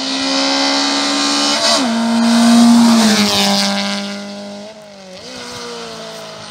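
Hill-climb rally car's engine running at high revs as it climbs toward and past, with a brief dip in revs about two seconds in. It is loudest midway as the car passes close, then the pitch falls and the sound fades as it drives on.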